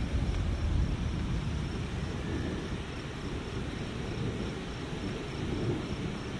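Thunder rumbling through a low, steady roll, loudest in the first second and easing slightly after.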